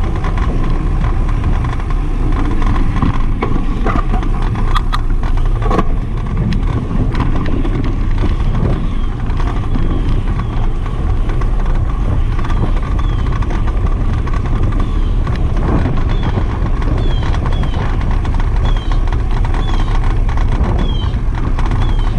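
Bicycle riding over brick pavers, with a loud, steady wind rumble on the microphone and scattered knocks and rattles from the tyres and bike on the paving. A run of short, high, falling chirps repeats through the second half.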